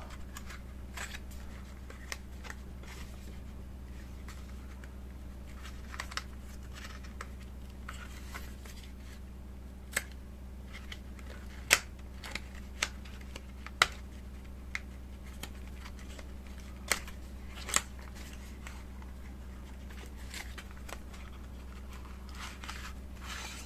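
White paperboard packaging insert being handled and pried open by hand: scattered sharp clicks and taps of card against card and fingers, loudest around the middle, over a steady low hum.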